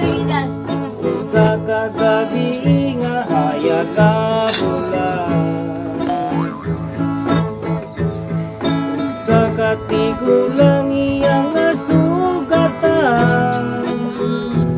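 A man singing a Tagalog song to his own acoustic guitar, strummed in a steady rhythm under the vocal line.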